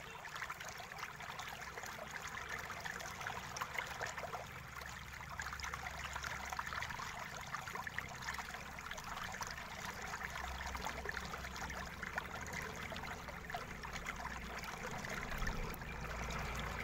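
Small screwdriver backing screws out of a netbook's plastic base, with light ticks and scraping over a steady hiss, and handling of the laptop case.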